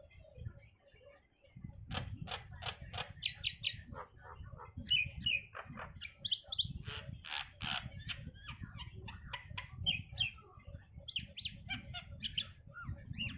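Pet myna calling: a rapid, irregular run of sharp chirps, whistles and squawks that starts about two seconds in, over a low background rumble.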